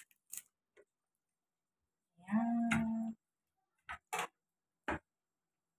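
A drawn-out voice sound, about a second long at a steady pitch, around the middle, with a few short clicks and taps from handling raw chicken pieces and kitchen scissors in a plastic colander.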